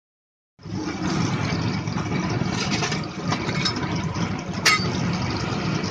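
Chopped garlic and coriander frying in oil on a large flat iron tawa, a steady noisy hiss over a low rumble, starting after a moment of silence. One sharp click about three-quarters of the way through.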